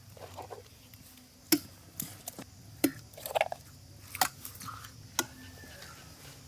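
A few sharp knocks and clicks, irregularly spaced about a second apart, over a faint steady low background.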